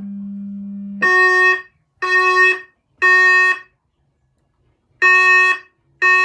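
Fire alarm speakers sounding the temporal-three evacuation tone from a Notifier DVC, the alert that comes before a voice message. There are three short beeps a second apart, a pause, then the pattern starts again. A steady low hum plays before the first beep.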